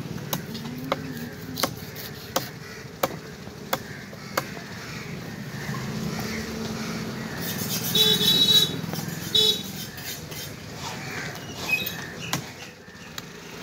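A large fish-cutting knife chops down through a seer fish onto a wooden log block, about seven sharp strokes roughly 0.7 s apart, which then stop. A loud high-pitched tone sounds twice around the middle, over a low murmur of voices.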